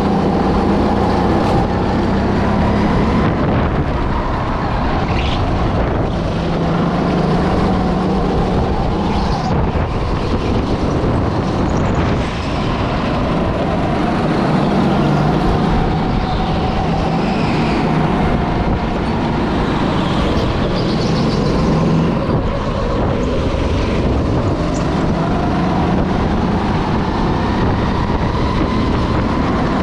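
Go-kart engine running at speed during a lap, its note repeatedly rising under acceleration and dropping off as it slows for corners.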